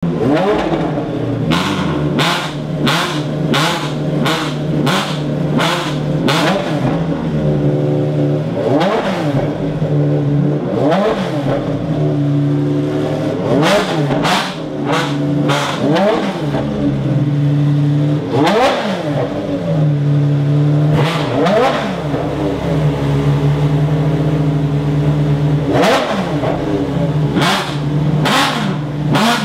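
Ferrari V12 track-only supercar engine idling loudly and being blipped hard on the throttle: a rapid string of short, sharp revs in the first several seconds, then single high revs every few seconds that shoot up and drop back to idle.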